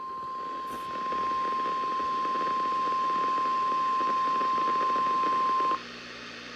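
NOAA Weather Radio 1050 Hz warning alarm tone: one steady high tone over radio static, heard through a weather radio receiver. It cuts off suddenly near the end, leaving only the receiver's static hiss.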